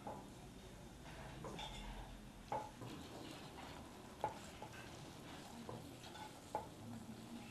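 A metal utensil stirring in a cooking pot, clinking against it repeatedly over a faint hiss, with three clinks louder than the rest.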